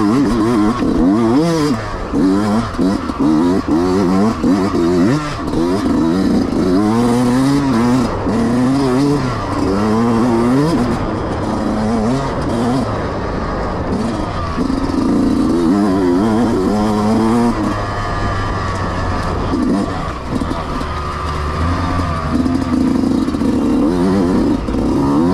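Yamaha YZ125X two-stroke dirt bike engine revving hard while racing, its pitch rising and falling over and over as the throttle is worked on and off.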